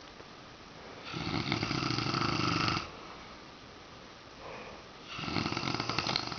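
A man snoring in his sleep: two long snores, each lasting about a second and a half or more, roughly four seconds apart.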